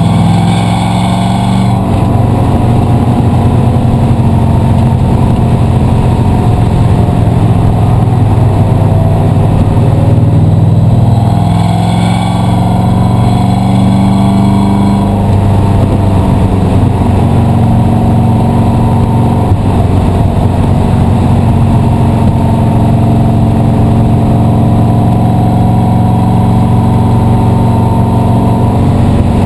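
Race car engine heard from inside the car at speed, its pitch rising and falling with throttle and gear changes. A higher-pitched squeal cuts in over it twice: near the start and again about halfway through.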